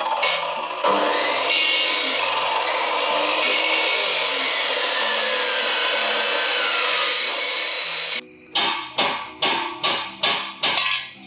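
Angle grinder cutting through a metal pipe with a steady high whine, stopping abruptly about eight seconds in. A quick run of about eight sharp knocks follows, roughly two or three a second. Background music plays underneath.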